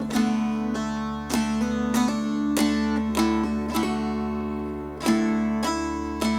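Instrumental music on a plucked string instrument: notes struck about every half second and left to ring together, over a steady low hum.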